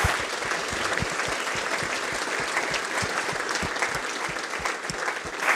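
Auditorium audience applauding steadily: many people clapping at once.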